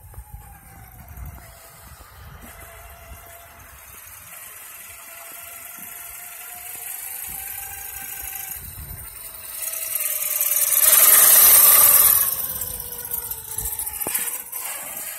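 Losi DBXL 1/5-scale buggy's brushless motor whining as it tows a loaded wheeled cart over asphalt, its pitch sliding up and down with the throttle. The whine and rolling noise swell to their loudest for a couple of seconds about eleven seconds in, then ease off.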